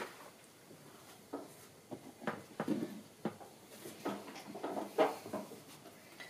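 A string of light knocks and clicks from painting materials being handled, irregular, a few a second, the loudest about five seconds in.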